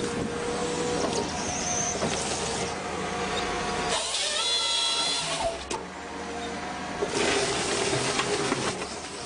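Wood-cutting machinery running with a steady motor hum, a high whine for a second or so about four seconds in, and a louder rush of cutting noise near the end.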